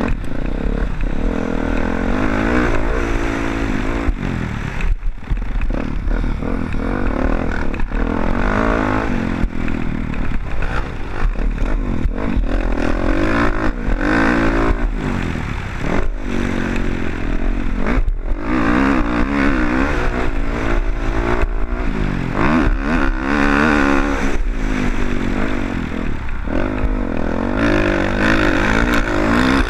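Motocross dirt bike engine revving hard during a race, its pitch climbing and dropping again and again as it accelerates and eases off, with a few brief gaps in the engine sound.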